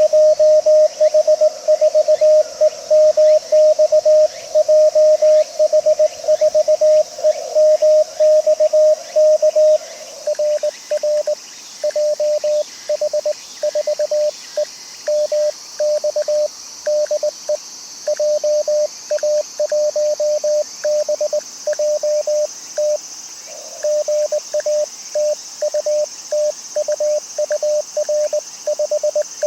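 Morse code (CW) from an amateur radio transceiver: a single tone of about 600 Hz keyed on and off in dots and dashes. For the first ten seconds it runs fast and unbroken, then it goes on as shorter, spaced-out groups of characters, a little quieter.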